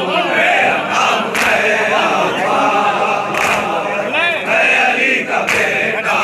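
A crowd of men chanting a noha together in unison. Three sharp group strikes of matam chest-beating, about two seconds apart, mark the rhythm.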